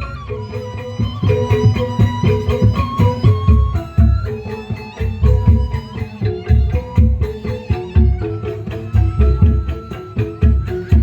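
Instrumental dance music with a steady, thumping drum beat under a plucked-string melody.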